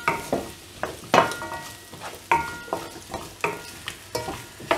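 Wooden spatula stirring and scraping potato cubes and onions around a kadai of hot oil, knocking the pan about once or twice a second so that it rings briefly after each stroke, with a frying sizzle underneath.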